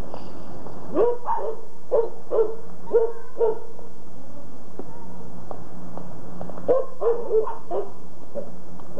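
A dog barking in two runs: about six sharp barks between one and four seconds in, then four more close together near the end.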